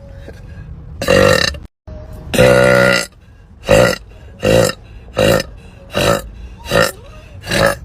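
A woman burping over and over: a burp about a second in, then a longer drawn-out burp with a clear pitch, then six short burps in an even rhythm, a little under one a second.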